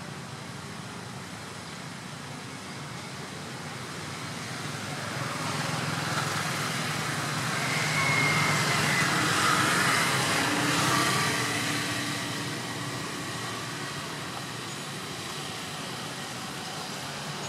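A motor vehicle passing on a nearby road: a steady engine-and-tyre noise that builds from about four seconds in, is loudest around the middle, then fades away.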